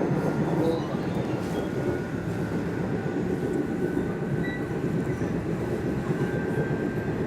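Nishitetsu electric commuter train running between stations, heard from inside the passenger car: a steady rumble of wheels on rails with a faint motor whine that rises slowly in pitch.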